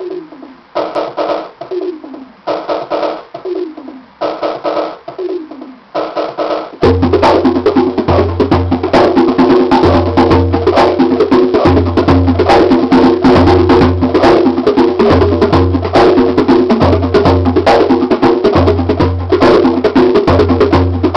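Djembe and bongos played by hand along with a drum machine. The machine's repeating pattern includes a falling-pitch electronic tone. About seven seconds in, the jam gets much louder and denser, with fast hand-drum strokes over a steady low bass pulse.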